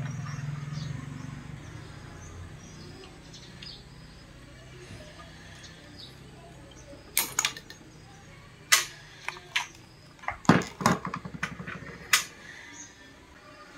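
Pistol-grip transformer soldering gun humming steadily for the first couple of seconds, then fading out. Next comes a run of sharp clicks and knocks from tools and parts being handled on the circuit board, loudest in the middle stretch.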